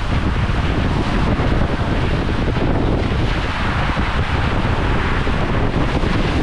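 Water rushing down a water slide flume with wind buffeting the microphone of a rider-worn camera: a loud, steady noise.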